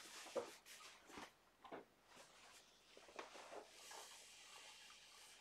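Near silence: a few faint paper rustles as a folded paper towel wet with sanding sealer is handled at the pen blank, then a soft steady hiss from about four seconds in as the towel rubs sealer onto the blank.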